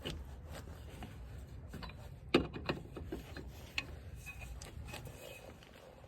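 Tire-change hardware being handled: a few scattered clicks and knocks, the loudest about two and a half seconds in, over a low steady rumble.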